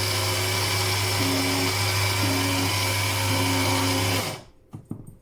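Electric grinder running steadily as it grinds almonds and whole white pepper to powder, then switched off a little over four seconds in.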